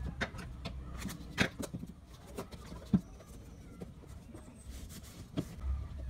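Hands handling a taped cardboard milk-carton box on a table: scattered taps and rustles, with two sharper knocks about one and a half and three seconds in.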